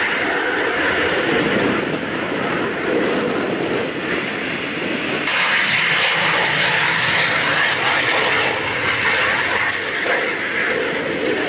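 Small military jet's engine during takeoff and a low pass, a steady loud rushing noise that abruptly turns brighter and hissier about five seconds in.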